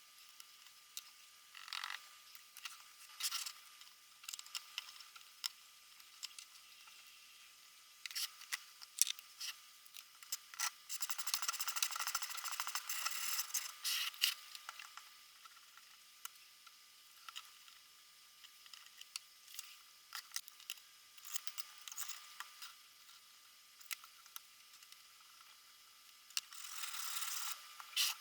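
Handling of a guided knife-sharpening jig and a knife: scattered small clicks and short metal scrapes, with a few seconds of denser scraping in the middle. Near the end a steady rubbing scrape starts, like a diamond stone being stroked along the blade.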